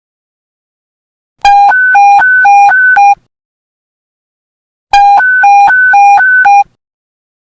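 Police panic-button alert tone: two bursts of electronic beeping, a low and a high tone alternating rapidly, each burst under two seconds long with a gap of silence between.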